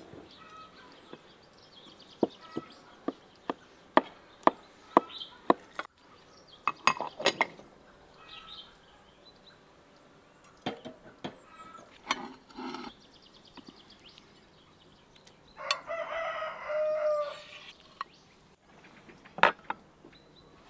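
A rooster crows once, one long call of about two seconds near the end. Before it, a run of sharp clinks of cutlery and tableware, about two a second, then scattered clinks.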